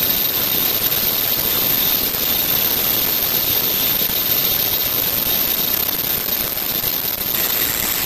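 An automatic non-woven filter bag making machine running, giving a steady, hiss-like mechanical noise with a thin high whine over it.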